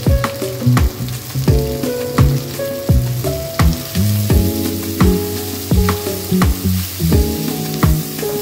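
Diced onion and green capsicum sizzling as they fry in a wok and are stirred with a spatula. Background music with a steady beat plays throughout.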